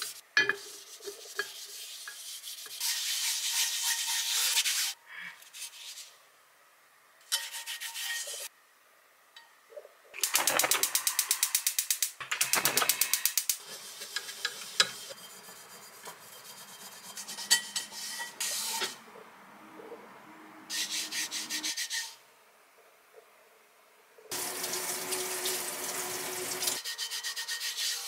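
Paper towel wiping oil over the surface of pans being seasoned, including a cast iron griddle pan. The scratchy rubbing comes in several separate spells, one with quick back-and-forth strokes.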